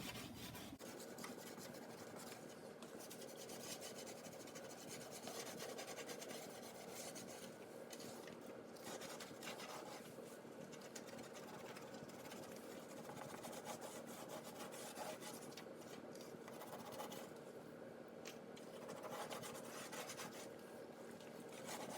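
A dishwasher tablet being rubbed back and forth on oven door glass: a faint, continuous scrubbing and scraping as baked-on grease is worked off.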